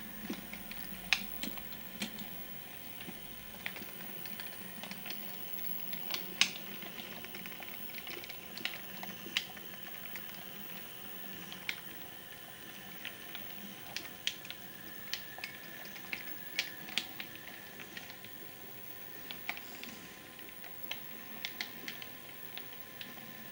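Model railway train, a G5 tank locomotive with three coaches, running through pointwork: irregular sharp clicks of the wheels over rail joints and points, one to three a second, over a faint steady hum.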